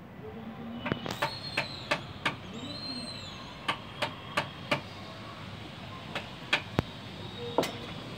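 Hand hammer striking a wood chisel held against an old wooden plank: sharp taps in three runs of four to six blows, about three a second, with short pauses between runs.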